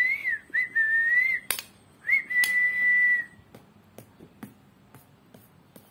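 Whistling: three clear notes at about the same pitch, each sliding up at the start, the last held steady for about a second. Light clinks of a steel spoon against a steel tray come in between and after.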